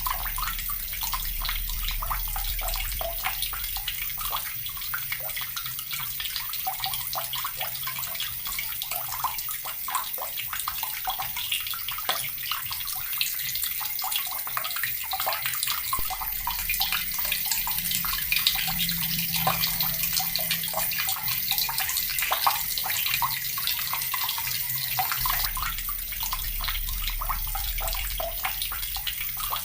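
Water running steadily from a tap: a continuous hiss with many small splashes where the stream lands.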